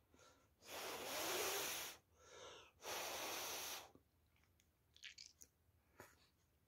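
A person blowing out hard twice, about a second each, with a breath drawn in between, followed by a few faint small clicks.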